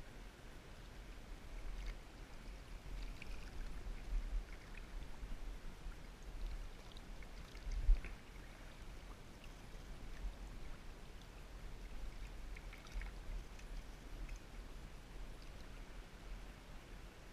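River water splashing and trickling, with wind rumbling on the microphone and one sharp knock about eight seconds in.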